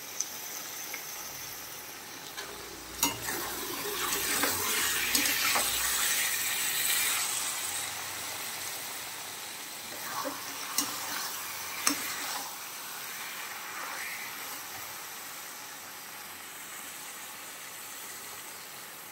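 Paneer sabzi sizzling in a steel kadhai as a steel spatula stirs it, with a few sharp clinks of spatula on pan. The sizzle swells from about three seconds in and eases after about eight.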